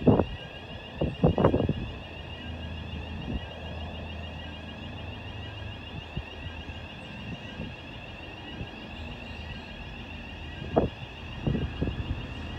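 V/Line N-class diesel-electric locomotive N454 approaching slowly, its engine a steady low hum. Wind buffets the microphone in loud gusts at the start and again near the end.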